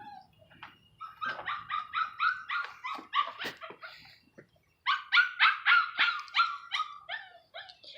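A dog barking in two quick runs of short, high yips, about three or four a second. The first run starts about a second in and the second about five seconds in.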